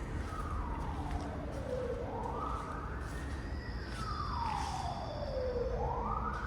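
Emergency vehicle siren in a slow wail, its pitch falling and rising again about every three and a half seconds, over a steady low rumble.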